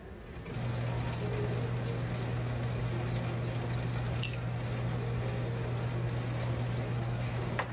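Ice dispenser's motor humming steadily from about half a second in while its push button is held, with no ice dropping into the glass.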